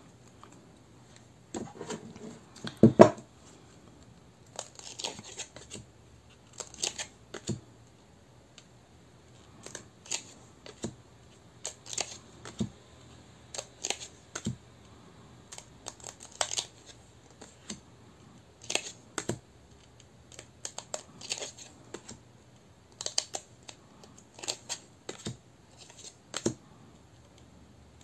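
A deck of new gold-edged tarot cards being handled: irregular short clicks and rustles of card stock as cards are separated and laid down one after another, with a sharper knock about three seconds in.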